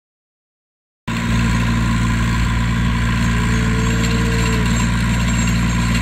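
Compact tractor engine running steadily as it drives a rear rotary tiller through a paddock, starting suddenly about a second in.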